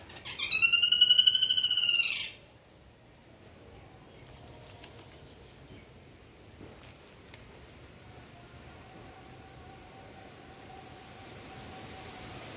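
A loud trilled animal call, rapidly pulsed and arching up then down in pitch, lasting about two seconds near the start. A steady high-pitched insect drone runs underneath and continues after it.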